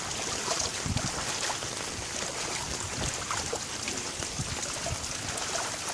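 Steady wash of rain and water, with scattered small splashes and drips.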